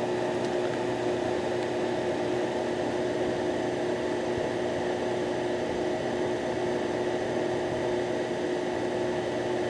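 Steady machine hum with a constant hiss and a few fixed tones, unchanging.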